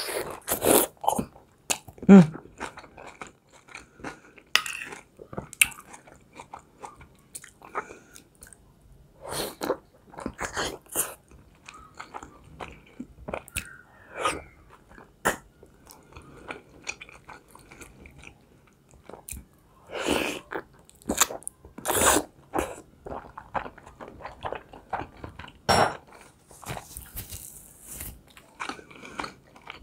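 Close-miked eating sounds: biting into and chewing soft boiled beef khinkali dumplings, a run of irregular wet mouth clicks and smacks. Near the end a short spell of soft hissing, like a paper napkin rubbed against the mouth.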